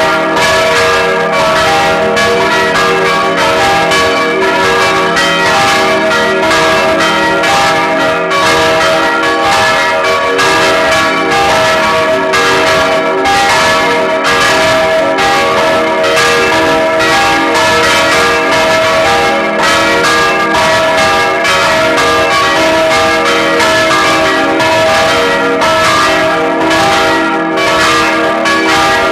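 Full peal of four church bells swinging and ringing together, their strikes overlapping steadily with no pause. Three are baroque bells cast in 1788 by Anselm Speck of Heidelberg; the fourth is a small bell from 1988.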